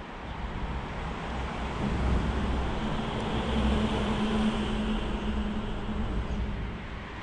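A vehicle crossing the road bridge overhead: a rumble of tyres and engine with a steady hum, swelling about two seconds in and fading near the end.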